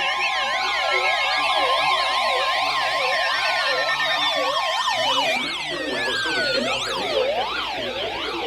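Several siren sounds going at once: fast up-and-down yelps, with long falling tones sliding down across them in the first half.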